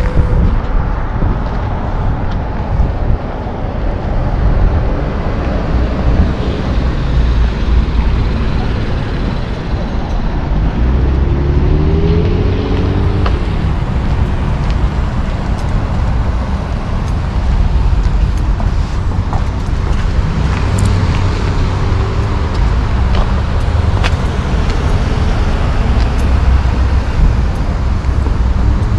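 Road traffic around a mall parking lot: cars passing in a steady, heavy low rumble.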